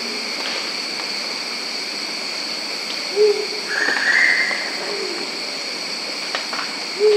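Thick-billed ground pigeon giving single short, low, flute-like "hoo" notes at regular intervals, twice, a few seconds apart, over a steady high background drone. A brief higher call sounds just after the first hoot.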